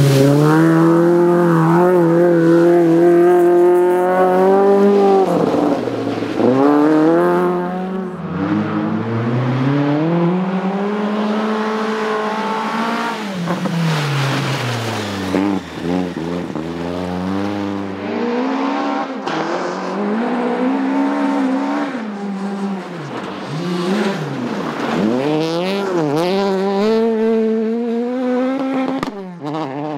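Rally car engines being driven hard. The engine note climbs through the revs and drops sharply again and again as the cars change gear and lift off.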